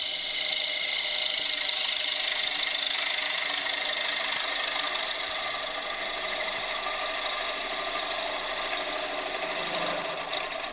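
Bowl gouge cutting into the inside of a large wooden bowl spinning on a wood lathe, a steady loud hiss of wood being sheared into shavings over the lathe's running hum, as the bowl's hollow is cut deeper.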